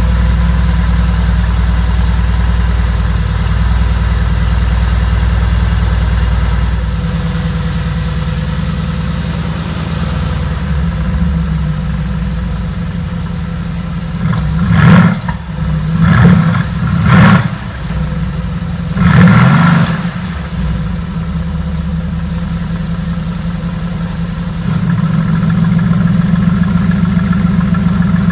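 Mercedes-AMG GT S's 4.0-litre twin-turbo V8 idling just after start-up in normal mode. The idle steps down to a quieter level about seven seconds in. About halfway through it is blipped four times in quick succession, the last rev the longest. Near the end the idle turns louder, with sport plus mode selected.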